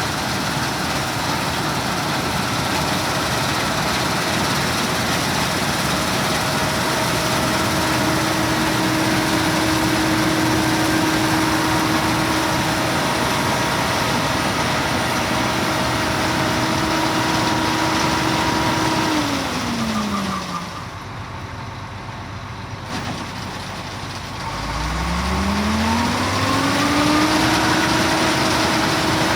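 Case 2388 combine harvester running steadily, with a held mechanical whine over the engine. About two-thirds of the way through, the whine glides down and the sound drops off. A few seconds later it rises back up in pitch and runs steady again.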